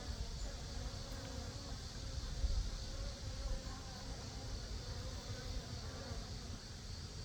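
Many Korean native honeybees (Asian honeybees) buzzing at a busy hive entrance, a steady, wavering hum from a strong colony flying in and out. A low rumble runs underneath.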